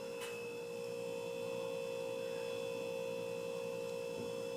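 Hunter Original ceiling fan's motor running on low speed, a steady even hum with a clear tone.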